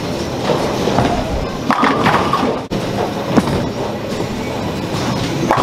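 Bowling alley noise: bowling balls rolling down the lanes and pins clattering, a steady rumble with scattered sharp knocks.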